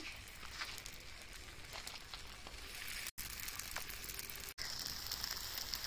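Parotta dough sizzling and crackling on a hot flat dosa griddle. The steady hiss grows stronger after about four and a half seconds as more rounds are laid on. The sound cuts out briefly twice.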